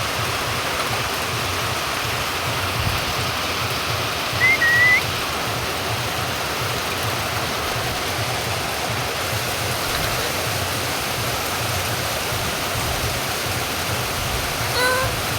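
Steady rain falling, with a short whistled bird chirp about four and a half seconds in and a brief, harsher bird call near the end.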